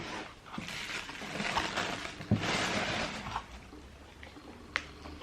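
Rustling and crinkling of paper and handling of a cardboard shoebox as it is opened, with a couple of light knocks, then quieter handling near the end.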